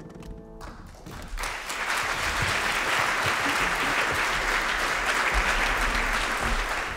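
The last piano chord dies away, then audience applause breaks out about half a second in, swells over the next second and carries on steadily.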